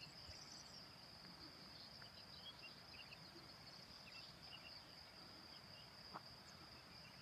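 Crickets trilling faintly and steadily at one high pitch, with scattered short chirps and a single brief click about six seconds in.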